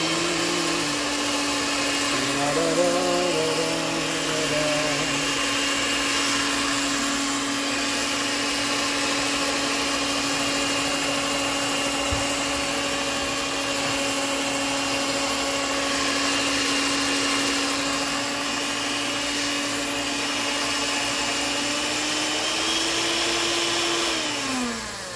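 Handheld electric mixer with a whisk beater running steadily in a pot of gravy, a constant motor hum. Near the end the hum rises slightly in pitch, then drops and winds down as the mixer is switched off.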